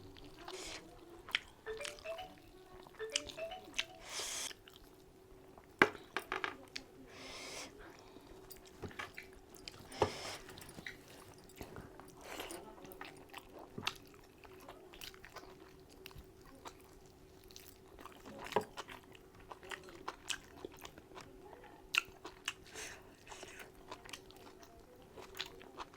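Close-miked mouth sounds of a person chewing and biting into spicy mutton curry and mutton marrow bones: irregular wet chewing with sharp crunchy clicks. A faint steady hum runs underneath.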